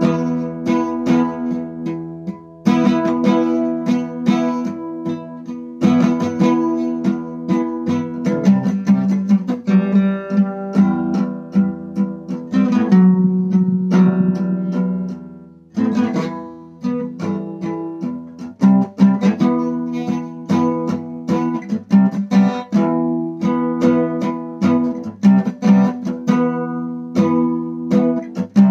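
Acoustic guitar played solo, chords strummed several strokes a second, with brief breaks about 3, 6 and 16 seconds in.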